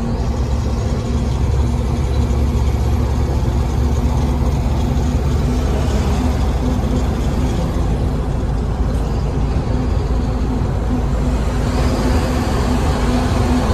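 Loaded heavy truck cruising on the highway, heard from inside the cab: its diesel engine makes a steady low drone with a constant hum, under even road and wind noise. The noise gets a little louder and brighter near the end.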